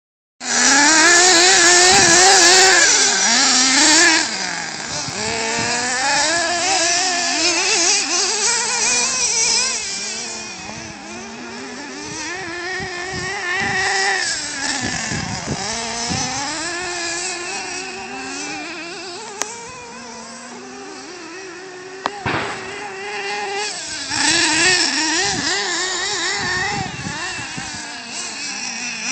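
Small nitro-fuelled RC monster truck engines, a Traxxas Revo .33 and a Hellfire .28, running at high revs. Their pitch keeps rising and falling as the trucks accelerate, lift off and turn across the grass. They are loudest in the first few seconds, fainter in the middle as they drive away, and louder again near the end.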